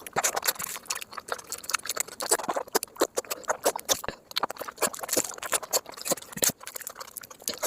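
Close-miked eating sounds: a steady run of wet chewing, lip smacks and small clicks from someone eating rice and chicken.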